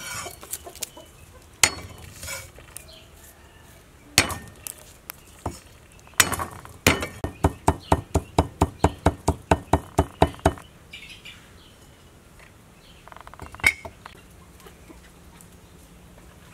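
Kitchen knife striking a thick wooden chopping block while cutting garlic: a few single knocks, then a fast, even run of chops at about four a second for about four seconds as the cloves are minced.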